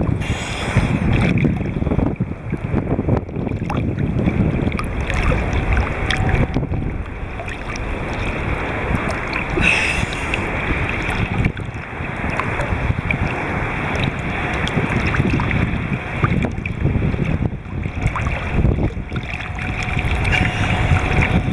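Wind buffeting the microphone over sea water sloshing and splashing close by, a continuous unsteady rumble with small sharp splashes; a faint steady hum joins near the end.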